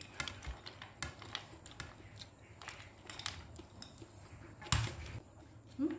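Steel spoon scraping and clinking in a steel bowl as spiced puffed rice is scooped out onto a ceramic plate, with light irregular scraping and rustling and one sharper clink a little before the end.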